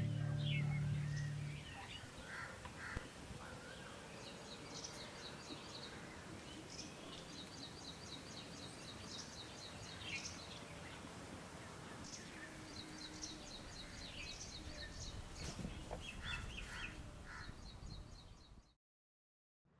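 Birds singing and calling outdoors in spring, one repeating quick runs of short high chirps, with other calls in between, over a faint low rumble. It cuts off abruptly near the end.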